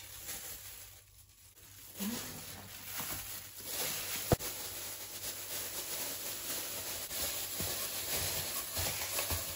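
Thin plastic bag crinkling and rustling as it is pulled back from a bowl, starting about two seconds in, with one sharp tap about four seconds in.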